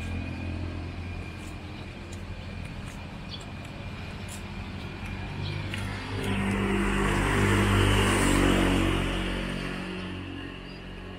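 Street traffic: a motor vehicle's engine fading away at first, then another approaching and passing, loudest about eight seconds in before dying away.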